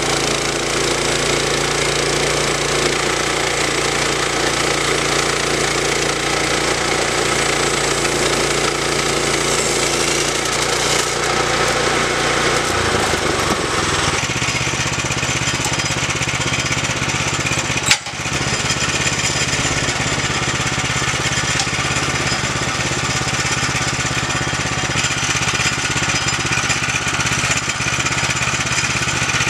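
Woodland Mills HM122 portable bandsaw mill running steadily, its gas engine driving the band blade as the head is pushed through a log. The engine note drops slightly about halfway through, with a brief break a few seconds later.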